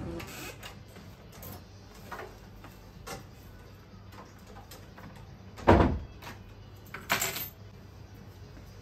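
Door and bags handled in a quiet room: a few light knocks and clicks, then a room door shutting with a single solid thump about two-thirds of the way in, and a short bright clatter just after it.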